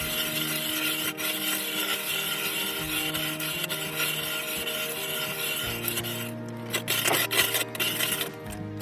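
Ice auger blades rasping steadily as they cut down through river ice, stopping about six seconds in, followed by a few sharp clicks, over background music.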